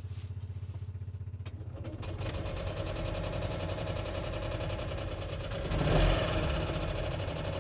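Goggomobil T700's 688 cc two-stroke twin being started and running, heard from inside the cabin: a steady low pulsing at first, then it picks up and runs louder from about two seconds in, with a brief rev around six seconds. The engine is loud.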